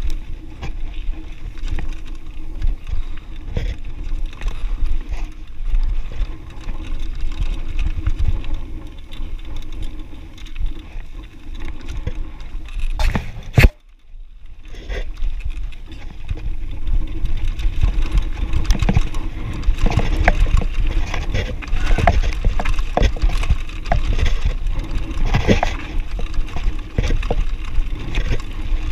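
Mountain bike rolling down a rocky gravel singletrack: a constant low rumble of wind on the microphone, with tyres crunching over stones and the bike rattling and clicking over the bumps. About halfway through comes a sharp knock, then a moment of near quiet before the rolling noise builds up again.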